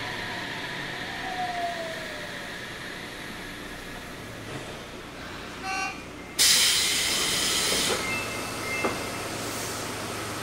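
Inside a Sendai Subway 1000N series car: low steady running noise, then a brief tone and, about six seconds in, a sudden loud hiss of air lasting about a second and a half, followed by a light click.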